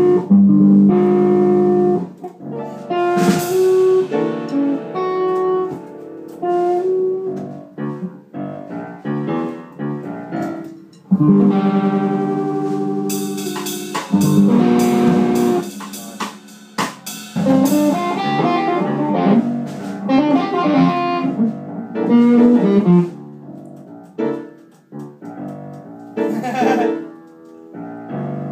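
A rock band playing without vocals: guitar, keyboard and drum kit, in phrases that break off and start again.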